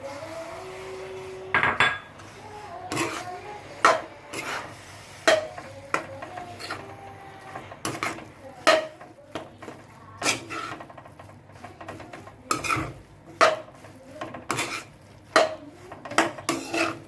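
A metal utensil stirring food in a cooking pan, clinking and scraping against the pan in sharp knocks about once a second.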